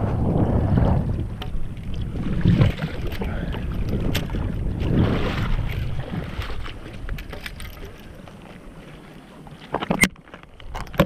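Wind buffeting the microphone over water sloshing in the shallows, easing off in the second half, with a sharp click near the end.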